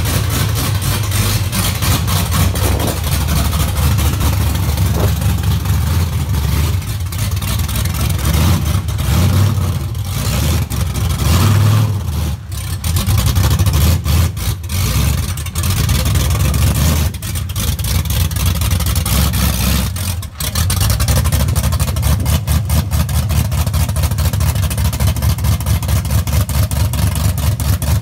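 1956 Chevrolet pickup's swapped-in LS V8 running with a throbbing exhaust, idling and being revved, with brief drops in level twice along the way.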